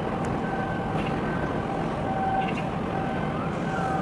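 Steady outdoor noise with a repeating electronic warning tone that alternates between a lower and a higher note, each held about half a second.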